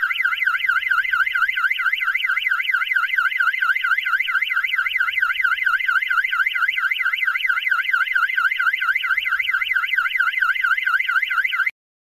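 Yale burglar alarm's external siren sounding: a loud electronic warble sweeping rapidly up and down in pitch several times a second. It cuts off suddenly near the end as the alarm is deactivated.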